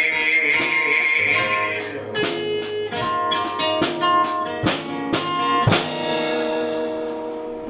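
Acoustic guitar closing the song with a run of sharp strummed chords, the last one ringing out and fading, heard through a television's speakers.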